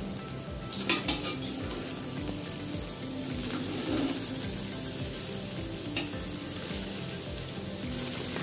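Cooked basmati rice and vegetables sizzling in hot ghee and oil in a large aluminium pot while being stirred and tossed with a metal spoon. The spoon knocks or scrapes against the pot a couple of times.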